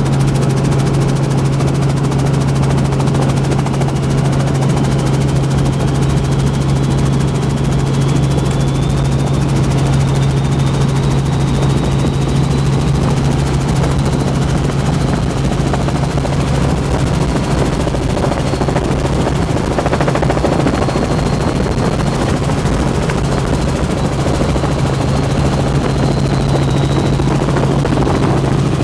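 Robinson R44 Raven II helicopter in flight, heard from inside the cabin: the steady drone of its rotor and six-cylinder Lycoming engine, with a faint high whine that slowly rises in pitch.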